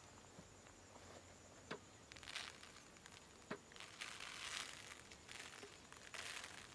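Salt grains sprinkled onto a spice-coated fish on a banana leaf, pattering faintly in several short hissy bursts, with a couple of sharp clicks.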